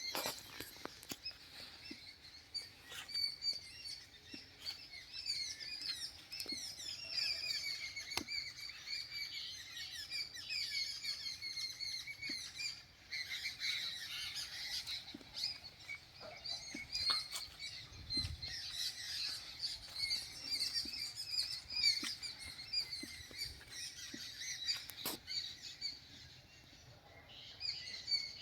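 Many small birds chirping and twittering together in a morning chorus, their short high calls overlapping continuously, with a few sharp clicks scattered through.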